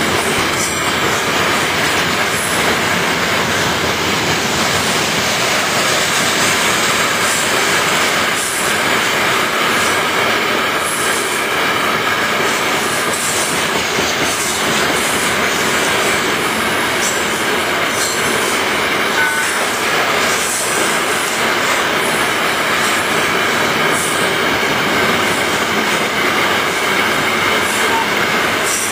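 Long freight train rolling past: the steady noise of steel wheels on the rails, with a high squeal running through it and now and then a sharp click.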